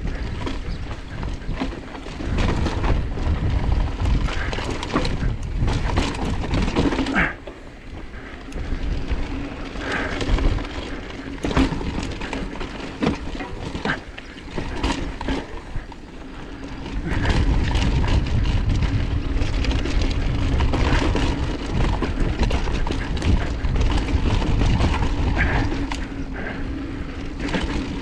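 Wind buffeting a helmet-mounted camera and tyres rolling over a dry, rocky dirt trail as an enduro mountain bike descends, with frequent clicks, knocks and rattles from the bike over rocks and roots. The wind rumble eases for several seconds in the middle and returns strongly for the last ten seconds.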